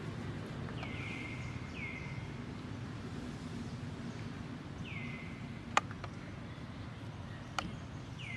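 An animal's short, high-pitched call, each one sliding down in pitch and then briefly held, heard four times at uneven spacing over a low background rumble. Two sharp clicks come in the second half, the first the loudest sound.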